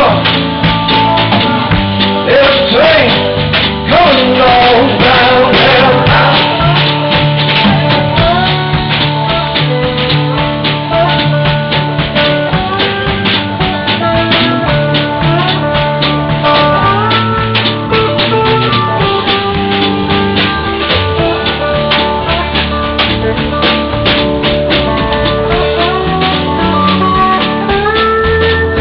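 Live blues band music led by a lap-played slide guitar, its notes gliding between pitches over a steady percussion beat.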